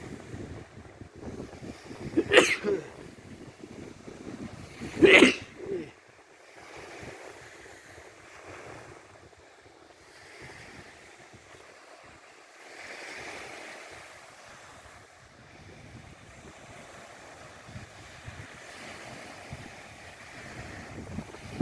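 A person sneezes twice, about three seconds apart, the second louder. Waves wash on the shore under a sea wind that buffets the microphone.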